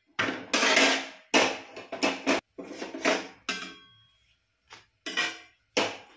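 Metal tongs and a roti pan clanking against a gas stove while rotis are turned and puffed over the flame. The knocks come at an uneven pace, about ten in all, with a pause near the middle.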